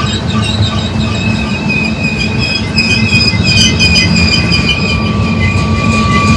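Freight train cars rolling past close by, a heavy rumble of steel wheels on the rail with a steady high-pitched squeal from the wheels.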